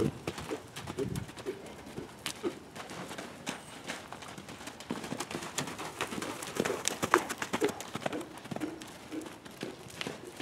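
Hoofbeats of a quarter horse colt loping loose around a sand round pen: irregular thuds of hooves in the soft footing, with a few sharper clicks.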